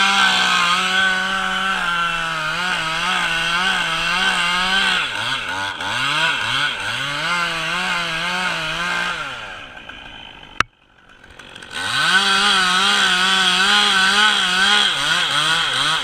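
Chainsaw at full throttle cutting into a holly tree, its pitch sagging and wavering as the chain loads up in the wood. About ten seconds in it winds down, there is a sharp click, and then it revs up and cuts again.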